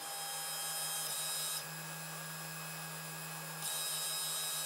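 Protomaker Sprint FDM 3D printer's stepper motors running as it homes and levels the bed: a steady low hum under a higher hiss. The sound changes about one and a half seconds in, and again about a second before the end, when the hum breaks into short even pulses.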